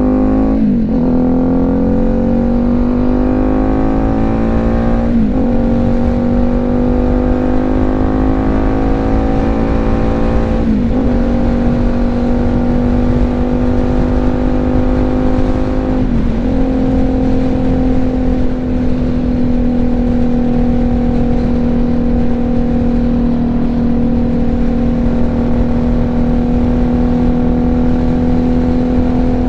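BMW G310GS single-cylinder engine accelerating through the gears: its pitch climbs and drops at four upshifts, about 1, 5, 11 and 16 seconds in, then holds steady at cruising speed. Heavy wind rush on the microphone runs underneath.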